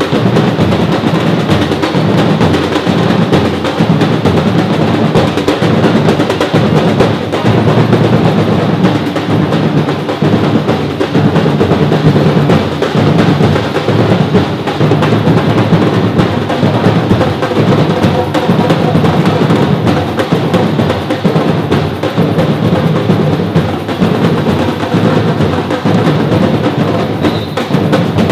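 Brazilian batuque drum group playing together: a dense, continuous rhythm of many drums, deep drums under sharper snare-like strokes.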